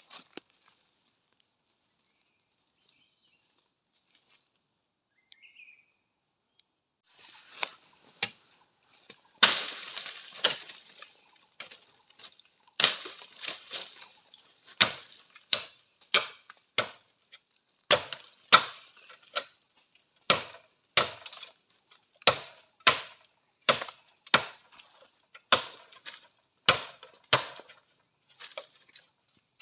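Machete chopping into bamboo: sharp woody blows, about one to two a second, beginning about a quarter of the way in and going on steadily, with a steady high insect buzz underneath.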